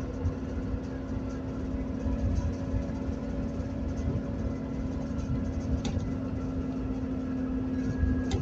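Alexander Dennis Enviro400 (Trident 2) double-decker bus heard from inside while under way: a steady drone from its diesel engine and drivetrain at an even pitch, over road rumble, with two short rattles from the body, the second near the end.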